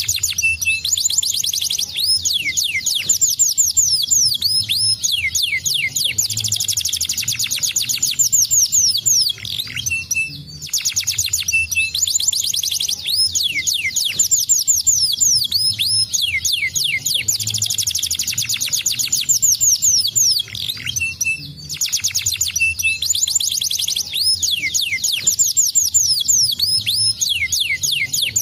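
Domestic canary singing a long, fast song of rapid trills and steep downward-sweeping notes, breaking off briefly twice.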